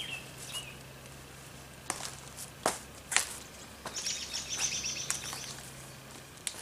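RV power cord being picked up and coiled by hand, with a few sharp knocks about two to three seconds in. A songbird chirps at the start and trills rapidly a little past the middle, over a steady low hum.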